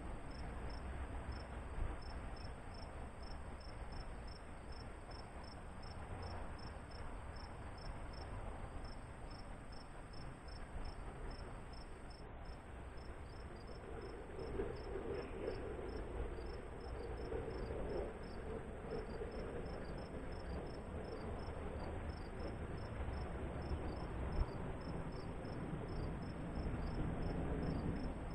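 A cricket chirping steadily, about four short high chirps a second, with a steady high whine above it. Underneath is a low rumble of outdoor background noise that swells for a few seconds in the middle.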